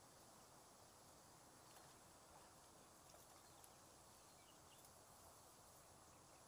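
Near silence: faint outdoor background hiss, with a few soft clicks and a brief faint high chirp a little past the middle.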